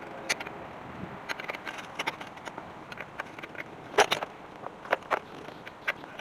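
Scattered sharp clicks and clinks of hand tools on a truck's drum-brake parts, irregular, with the loudest knock about four seconds in and another about a second later.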